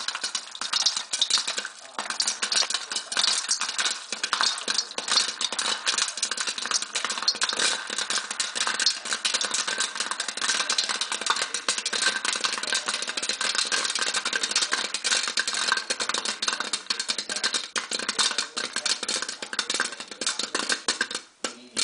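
Homegrown popcorn popping hard inside a covered aluminium pan on the stove: a dense, continuous crackle of kernels bursting in quick succession, thinning out near the end.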